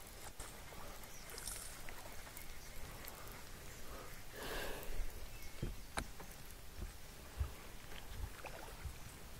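Quiet sounds of a small bass being hooked and reeled in from the bow of a bass boat: a short rushing burst about four and a half seconds in, a sharp click about a second later, and a few dull thumps on the deck near the end.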